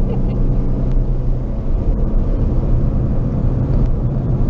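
A performance car's engine, heard from inside the cabin, running steadily under load at speed on a racetrack, with a low, even drone and road and wind noise.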